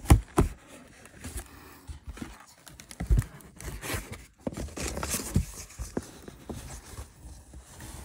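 A parcel being opened by hand: packaging rustling, tearing and scraping, with a few sharp knocks, the loudest just after the start and about three seconds in.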